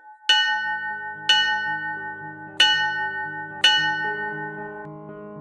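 Four struck bell tones about a second apart, each ringing and slowly fading, over soft low sustained musical notes.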